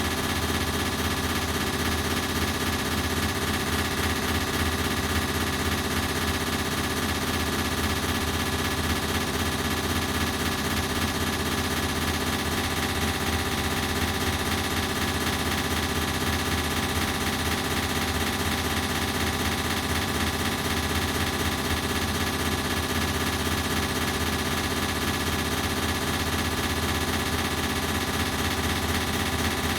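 Ceiling fan running steadily, a rapid fluttering pulse over several steady hum tones, thickened by an added echo effect.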